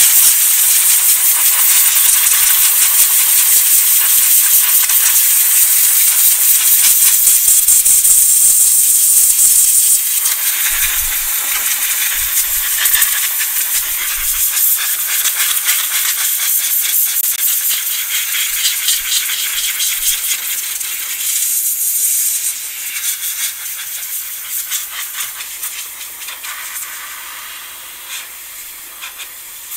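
Compressed-air blow gun hissing as it blows isopropyl alcohol off a circuit board. It runs loud and steady for about ten seconds, then comes in shorter, uneven blasts and weakens toward the end as the compressor's tank pressure runs down.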